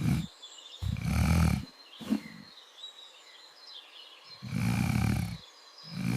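Animated elephants calling: about five short, deep, rumbling roars, one after another, with faint birdsong between them.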